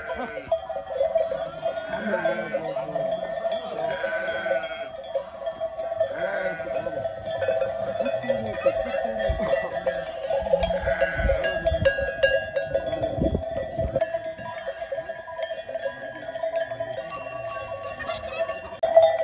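Flock of sheep with bells: the bells clank without a break, and sheep bleat several times, mostly in the first half.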